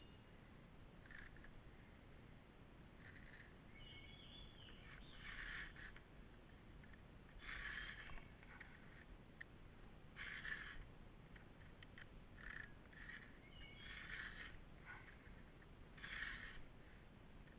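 A PFERD CS-X filing guide, with its round file and flat raker file together, rasping across a chainsaw chain's cutters and depth gauges as the cutters are sharpened. The file strokes are short scrapes of about half a second, one about every two seconds.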